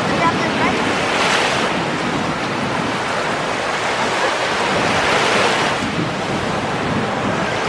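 Small surf breaking and washing up over the sand at the water's edge, swelling louder about a second in and again around five seconds, with wind buffeting the microphone.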